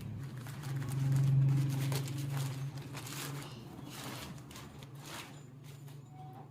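Plastic parcel packaging being pulled open and handled, with irregular rustling and crinkling that dies away after about five seconds, over a low steady hum.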